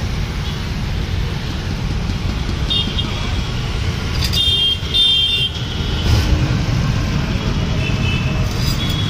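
Steady road-traffic rumble with vehicle horns tooting: a short honk about 3 seconds in, louder honks from about 4 to 5.5 seconds, and another near the end.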